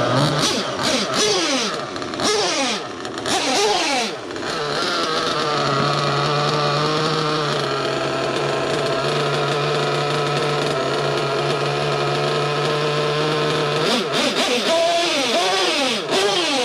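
Novarossi .25 nitro engine in an RC truggy revving up and down on the throttle, settling into a steady idle for about ten seconds, then revved again near the end. The engine is new and being run in, and is still running a little rich with a low idle.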